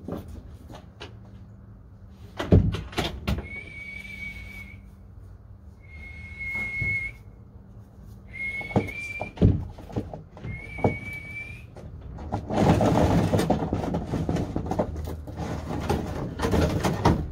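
Four long, steady whistle notes, each about a second long, the kind a pigeon keeper uses to call the birds down to their feed. A couple of sharp knocks come before them, and a loud rustling noise lasts several seconds near the end.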